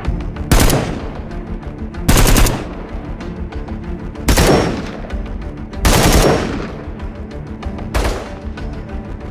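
Short bursts of automatic gunfire from an FN firearm: five bursts of a few rounds each, about every one and a half to two seconds, each ending in an echoing tail. A steady music bed runs underneath.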